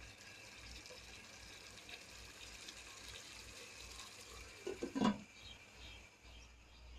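Chicken pieces and spice paste sizzling in oil in a pan while being sautéed down: a steady, even hiss.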